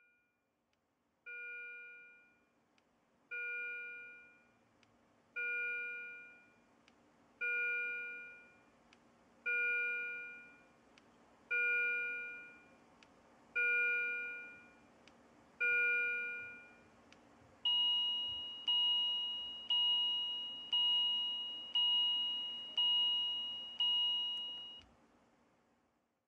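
Bedside patient monitor alarm chiming: a pitched electronic chime about every two seconds, eight times and louder at first, then a higher chime about once a second, seven times, over a low steady hum. The faster, higher alarm marks a patient whose condition is deteriorating.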